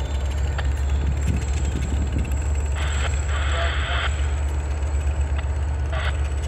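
Diesel freight locomotives running with a steady low rumble as the train pulls away. There are short bursts of hiss about three seconds in and again near six seconds.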